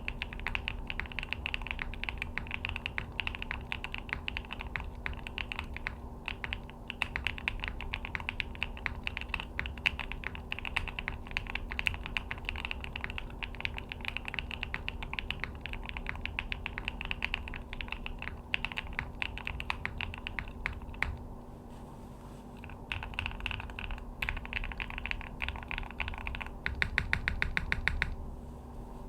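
Typing on a Neo65 custom 65% mechanical keyboard: a steady stream of keystroke clacks, a short lull about two-thirds of the way through, then a louder, fast run of presses near the end. A faint steady hum sits underneath.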